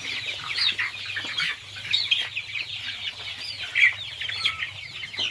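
A flock of young local chickens, about a month old, calling all at once: many short, high, overlapping clucks and cheeps with no pause.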